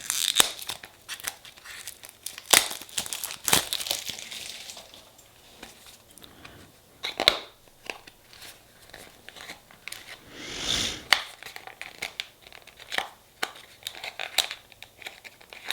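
Packaging being handled and opened: crinkling and tearing with scattered clicks and taps, and a longer stretch of rustling about ten seconds in.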